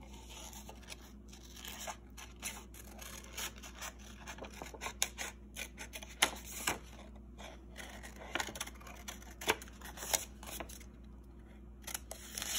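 Scissors cutting paper: a run of short, sharp snips at an irregular pace, with the paper rustling as it is turned.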